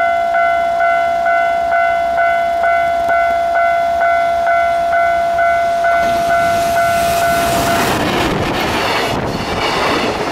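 Japanese level-crossing alarm bell ringing steadily at about two strokes a second while a JR Freight EF210 electric locomotive approaches with a container train. From about six seconds the train's rumble builds. Near eight seconds the bell is no longer heard under the rushing, clattering noise of the container wagons passing close by.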